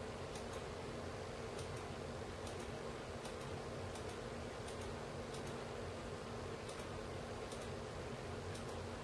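Steady hiss with a faint low hum and scattered faint, very high-pitched ticks at irregular intervals: room tone.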